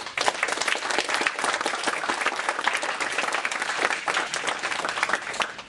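Audience applauding: dense clapping from many hands that starts abruptly and dies away near the end.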